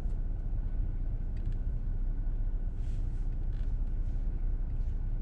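Steady low rumble of a running car heard from inside the cabin, with a faint constant high tone above it.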